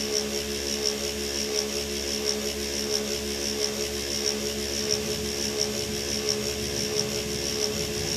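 Dump truck's diesel engine idling steadily, heard from inside the cab.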